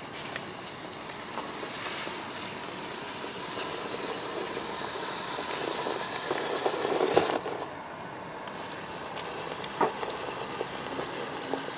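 RC rock crawler's motor and drivetrain running as it climbs a steep rock face, its tyres scrabbling on the rock. The noise builds about six seconds in, with a sharp knock about seven seconds in and a smaller one near ten seconds.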